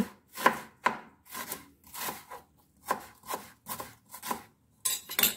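Kitchen knife slicing an onion on a plastic cutting board: a run of short taps as the blade meets the board, about two a second. The last two taps near the end are louder.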